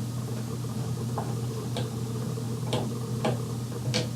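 Scattered light clicks and ticks of a screwdriver and a new wall light switch being handled and its mounting screws tightened, about five in all, over a steady low hum.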